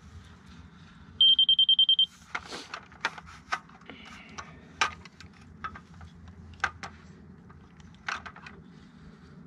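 Laser receiver on a grade rod beeping rapidly for about a second, a little over a second in: it has picked up the laser transit's beam. A string of sharp clicks and knocks follows as the receiver is handled on the rod.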